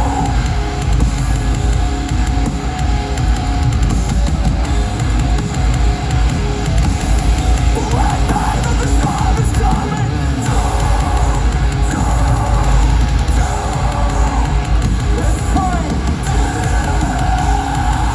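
A heavy rock band playing live: drums and distorted guitars, loud and dense in the bass, in an instrumental passage with no sung words.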